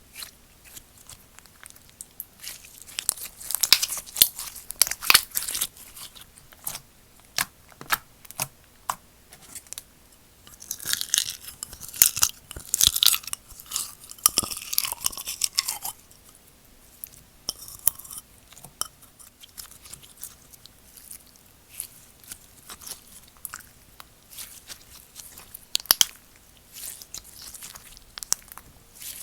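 Slime being handled and squeezed by hand, making sticky clicks and crackles, with a denser run of crackling partway through.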